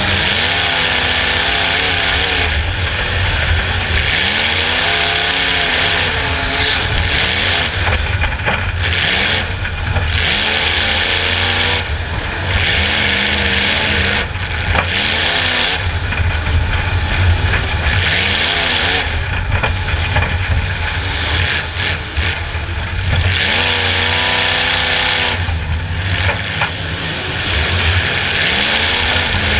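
Demolition derby car's engine revving up and easing off again and again, over loud, steady noise and rattle.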